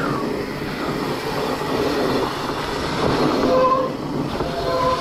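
Mountain bike disc brakes squealing as they are dragged on a dirt descent, a droning squeal in a few steady pitches that comes and goes, strongest a little past halfway and again near the end, over the steady rattle of the tyres on the trail.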